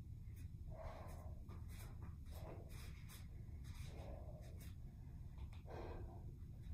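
A woman breathing hard from kettlebell lifting, one soft breath about every second and a half, with a few faint clicks in between.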